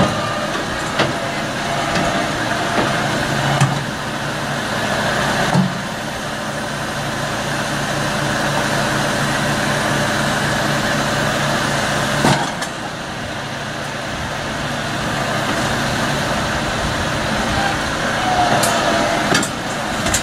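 Tractor engine running steadily behind a hitched vacuum slurry tanker, with a few sharp knocks; after a louder knock about twelve seconds in, the low hum drops away.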